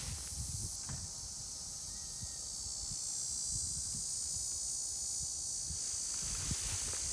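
Field insects such as crickets trilling steadily in tall grass. Their high, even trill grows stronger a few seconds in, over an uneven low rumble.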